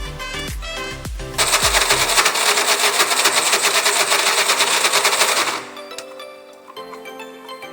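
Background music, then about a second and a half in a loud electric blender runs for about four seconds, grinding peanuts for peanut sauce, and cuts off suddenly as the music carries on.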